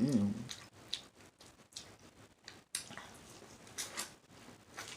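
Wet eating sounds of a seafood boil: scattered short smacks, clicks and squishes from sauce-covered food.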